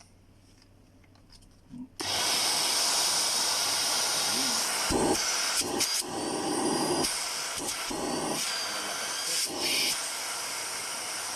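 Bissell Featherweight stick vacuum cleaner switched on about two seconds in and running with a loud, steady hiss of its motor and airflow, the sound shifting and dipping several times in the middle.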